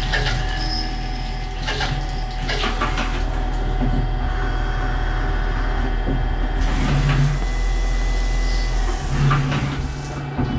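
CNC lathe running a machining cycle: a steady mechanical hum with a high whine and several sharp clanks. The whine and the low hum stop about nine seconds in.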